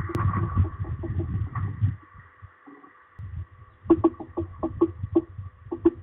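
Woodpecker tapping on wood nearby: a series of irregular knocks, about four a second in the second half, each with a dull low thud. A faint steady high whine runs underneath.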